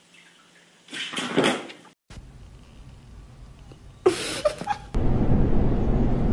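A brief noisy scuffle about a second in and a short sharp sound near four seconds, then, from about five seconds, the steady loud rumble of a subway train running.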